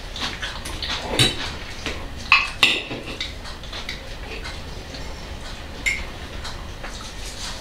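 Forks and cutlery clinking against plates while people eat salad: a few scattered sharp clinks, the two loudest close together about two and a half seconds in.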